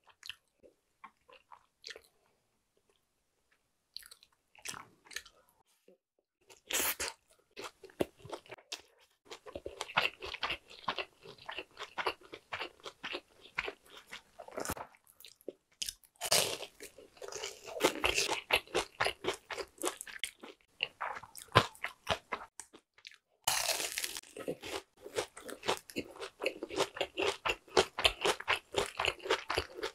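Close-miked crunchy chewing and biting of food: a few soft clicks at first, then a steady run of crisp crunching from several seconds in. The densest crunching near the end comes from biting into a crispy fried jumbo shrimp.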